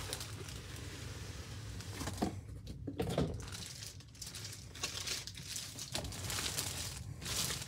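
Clear plastic bag crinkling and cardboard rubbing as a boxed item is slid out of a shipping carton and handled, in irregular rustles that are louder about two and three seconds in and again near the end.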